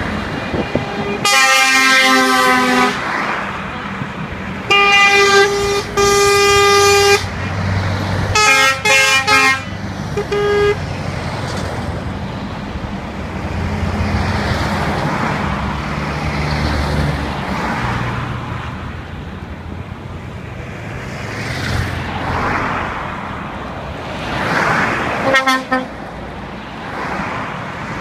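A convoy of trucks passing one after another, their horns sounding three long blasts, several tones at once, in the first ten seconds and a short blast near the end. Between the blasts, diesel engines and tyres rumble past, swelling and fading as each truck goes by.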